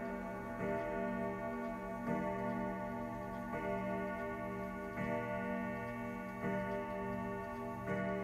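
Grandfather clock's Kieninger movement striking the hour with the case door closed: a deep ringing stroke about every second and a half, six in all, each ringing on into the next.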